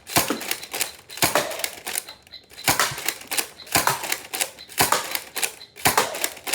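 Spring-powered Nerf blaster being primed and fired over and over, a sharp plastic clack about once a second.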